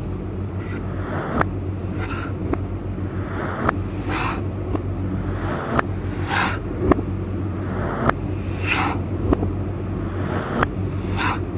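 A knife cutting vegetables on a cutting board: sharp taps about once a second alternating with crisp slicing swishes, over a steady low hum.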